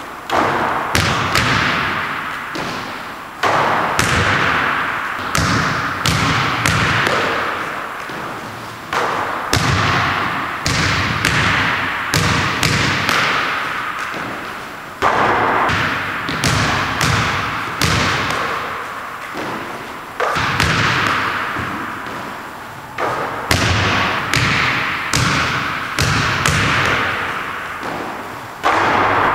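A basketball thudding repeatedly on a hardwood gym floor and against the hoop. Each impact rings on in a long echo around the empty hall.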